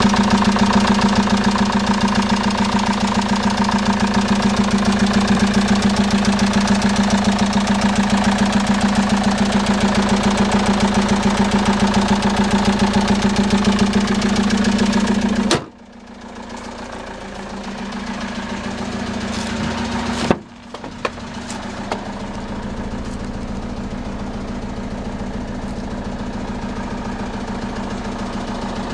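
Citroën Jumper's 2.2 HDi four-cylinder diesel idling with a steady diesel clatter. About halfway through, a knock and a sudden drop in loudness, as when the bonnet is shut over the running engine. A few seconds later comes another knock, and the engine idles on, quieter.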